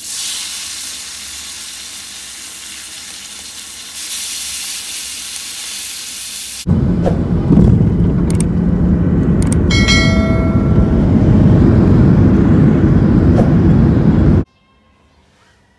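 A lamb chop sizzling in hot oil in a cast-iron skillet, a steady hiss that grows louder about four seconds in. About seven seconds in it cuts to the loud, low rumble of a jet airliner heard from inside the cabin, with a brief chiming tone about ten seconds in. The rumble cuts off suddenly shortly before the end.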